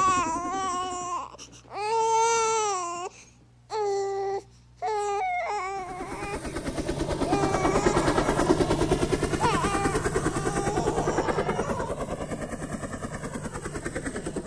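A high wailing voice like crying, in wavering held notes that break off twice briefly, then from about six seconds in a denser, rapidly pulsing wavering sound.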